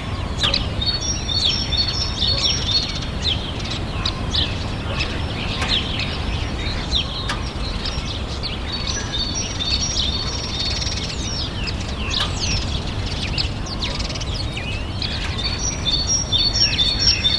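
Many birds chirping: short downward-sweeping chirps throughout, with bouts of fast repeated high notes about a second in, around ten seconds in, and near the end, over a steady low rumble of background noise.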